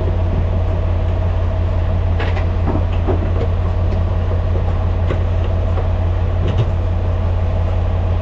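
Semi-truck's diesel engine idling: a loud, steady low hum with a faint even whine above it and a few light clicks.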